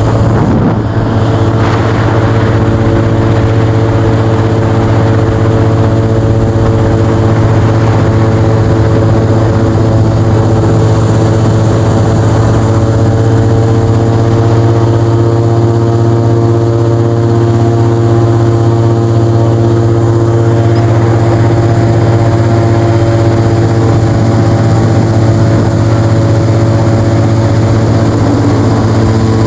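Airboat's engine and big air propeller running steadily at cruising speed, a loud, even drone with a constant pitch.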